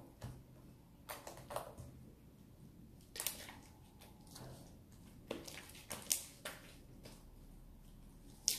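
Freshly activated homemade jiggly slime squelching as it is kneaded and stretched between the hands, giving irregular sharp little clicks and pops, the loudest near the end.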